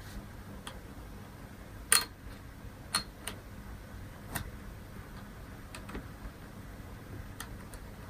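A few small, sharp clicks and taps, the loudest about two seconds in, as a Core 2 Duo laptop processor is handled and fitted at the CPU socket of a Mid 2007 iMac logic board.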